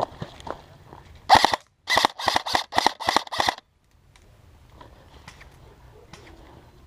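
Airsoft gun firing a string of about seven shots: one, then six more in quick succession at roughly three to four a second.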